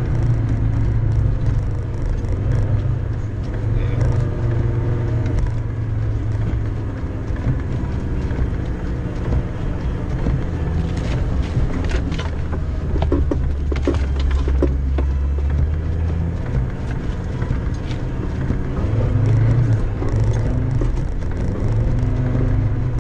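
Land Rover Defender 90 Td5's five-cylinder turbodiesel engine working hard as the truck ploughs through deep snow, heard from inside the cab, its engine speed shifting up and down. A run of knocks and clatters about halfway through comes as snow is thrown over the windscreen.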